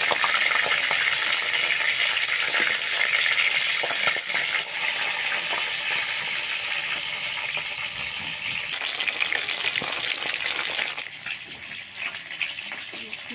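Fish pieces sizzling as they fry in hot oil in an iron wok, with a metal spatula scraping and turning them. The sizzle is loudest at first and drops away sharply near the end.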